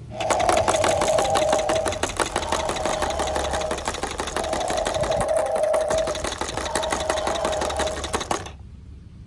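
Battery-powered toy transport truck's engine sound effect, set off by a button on the cab: a fast clattering chatter with a buzzing tone through it, cutting off suddenly near the end.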